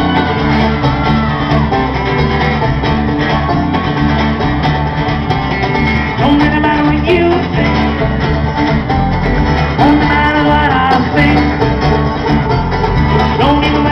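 Live acoustic band playing an upbeat bluegrass-style tune: banjo, acoustic guitar and electric bass over a steady cajón beat, heard through the stage PA.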